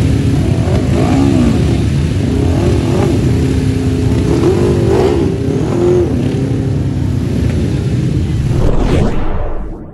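Engines of several 1000cc grasstrack racing sidecar outfits running close by, the throttles blipped now and then so the pitch rises and falls. The sound fades out just before the end.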